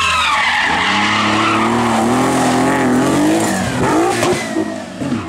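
Classic Porsche 911 rally car's air-cooled flat-six revving hard through a corner, tyres scrabbling on loose gravel and dust. The engine note climbs for a few seconds, drops about three and a half seconds in, and fades near the end.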